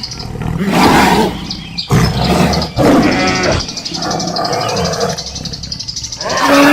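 Loud animal calls, about five separate cries roughly a second apart, each lasting under a second.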